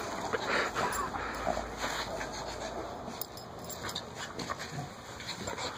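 Two dogs play-fighting, with short, irregular dog vocalisations and scuffling as they wrestle.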